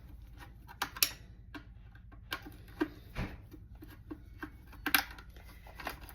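Scattered small clicks and taps of a screwdriver and wire being worked loose while a copper ground wire is detached from an appliance's electrical connection, over a faint steady low hum.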